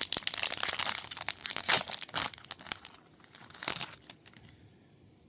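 Plastic wrapper of a trading-card pack crinkling and tearing as it is opened, a dense crackle that dies away about four seconds in.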